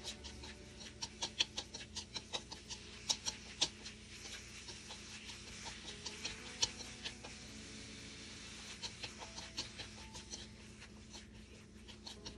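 Wooden chopsticks clicking and scraping against a nonstick pan as rice vermicelli and shredded cabbage are tossed in a stir-fry, over a light sizzle. The clicks come in quick runs, thickest in the first few seconds and again about halfway through.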